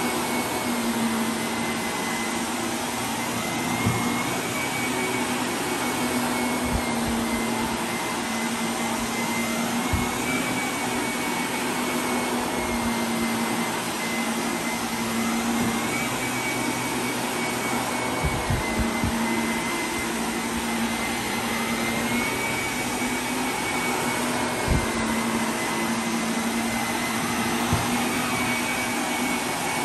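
Shark upright vacuum cleaner running on carpet. Its motor hum and whine are steady, and the pitch shifts slightly up and down about every six seconds. A few soft low thumps come now and then.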